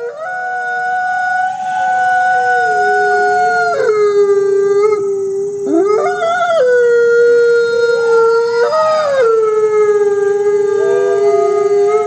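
A pack of wolves howling together: several long, overlapping howls at different pitches, each held steady and then sliding up or down.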